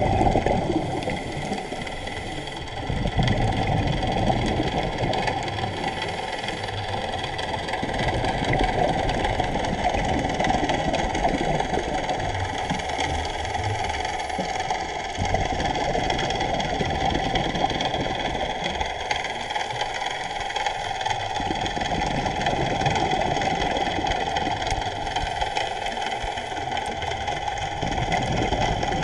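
Muffled underwater sound through a camera housing: a scuba diver breathing through a regulator, with a hiss on each breath in and a rumble of exhaled bubbles, cycling about every six seconds over a steady crackle.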